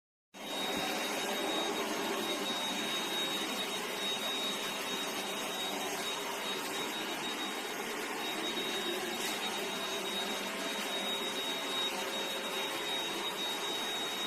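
Handheld cordless car vacuum cleaner running steadily: a rushing hiss of motor and airflow with a thin, high steady whine over it, starting abruptly about a third of a second in.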